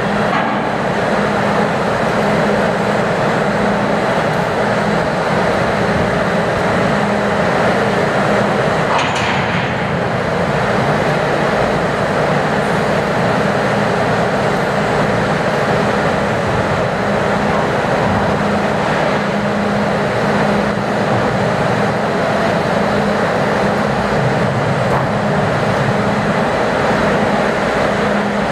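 Loud, steady machinery drone with a low hum running through it, from ship and crane machinery while a container gantry crane works over the hold. A single brief clank about nine seconds in.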